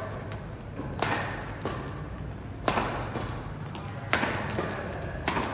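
Badminton rackets striking the shuttlecock in a fast rally: four sharp hits about a second and a half apart, each echoing briefly in a large hall.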